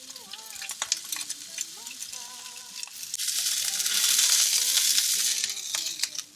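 Salmon frying in oil in a pan, sizzling with many small crackles and pops. About three seconds in, the sizzle swells into a loud, bright hiss for a few seconds, then drops away near the end.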